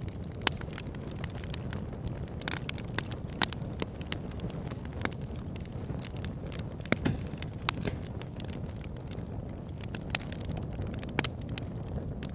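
Wood fire burning in a fireplace: a steady low rumble of flames with frequent irregular crackles and sharp pops of burning logs, a few louder snaps scattered through.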